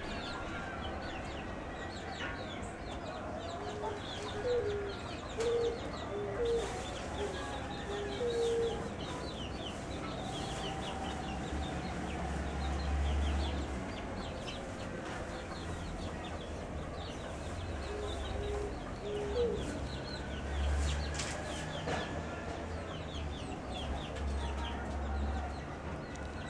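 Domestic chickens clucking in short runs of notes, with a steady scatter of high chirps and peeps from the flock. A low rumble comes and goes a few times.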